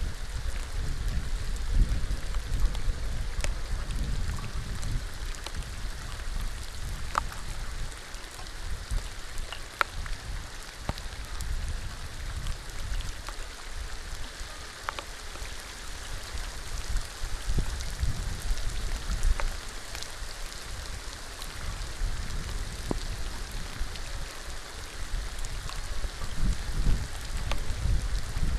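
Steady rain falling on open water, with scattered single drops ticking sharply through the hiss. A low rumble comes and goes underneath, strongest near the start and the end.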